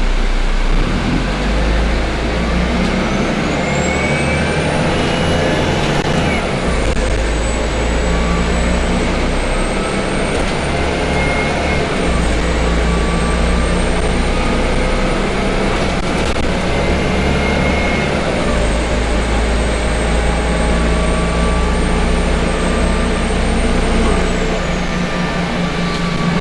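Cabin sound of a Volvo B12BLEA city bus under way: its rear-mounted Volvo DH12E turbocharged six-cylinder diesel drives through a Voith DIWA automatic gearbox, and the low engine drone shifts in pitch several times. A high whine rises, holds and falls away near the end. The Volgren body rattles throughout.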